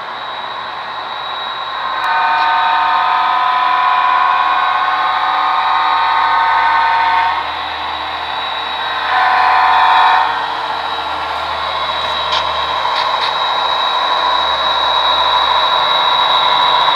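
HO scale model diesel locomotive's onboard sound playing a multi-chime air horn: one long blast of about five seconds, then a short blast about two seconds later. Under it the model's diesel engine sound runs steadily, with a thin high whine.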